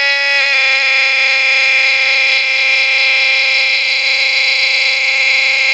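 A shouted "Quiet!" held as one long, unbroken, high-pitched note, loud and steady in pitch.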